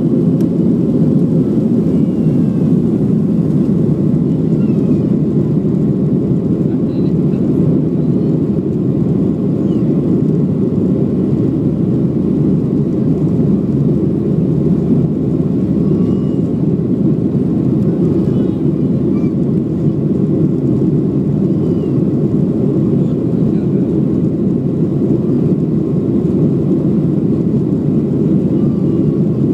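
Cabin noise in a Boeing 737-700 as it lifts off and climbs away: its CFM56-7B turbofans run at high power, a loud, steady deep rumble that does not change.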